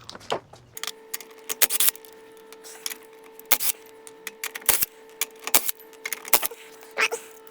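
Irregular sharp metallic clicks and clinks of hand tools and wheel hardware being handled, about a dozen, over a faint steady hum that starts about a second in.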